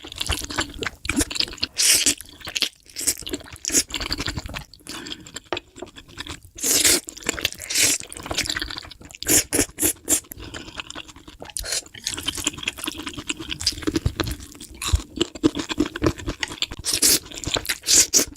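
A person eating close to the microphone: irregular crunching and wet chewing sounds, mouthful after mouthful.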